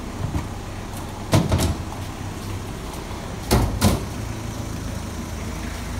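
Robin 2-inch water pump's petrol engine running steadily. Two pairs of sharp knocks come over it, one pair about a second and a half in and another about three and a half seconds in.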